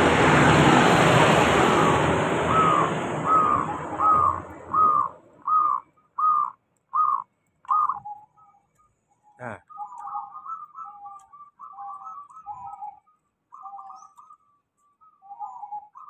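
Caged zebra dove (perkutut) singing: a run of about nine short, evenly spaced notes, roughly one and a half a second, then a rolling, warbling coo. It is a regularly sun-dried, well-kept bird in song. A single sharp knock comes about nine seconds in, and loud road noise from a passing vehicle fades out over the first five seconds.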